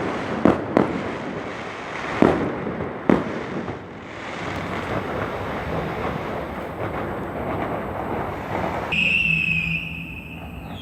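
Large firecrackers going off: four loud bangs in the first three seconds, then dense continuous crackling. About nine seconds in the crackling gives way to a steady high-pitched tone over a low hum.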